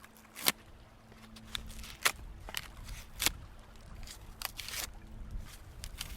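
Birch bark being pulled and peeled off, giving irregular sharp cracks and crinkling snaps. The loudest crack comes about half a second in.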